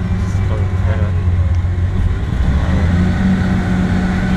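MAN SL200 bus's diesel engine and Voith 4-speed automatic gearbox pulling under way, heard from inside the bus: a steady low drone that grows stronger about three seconds in.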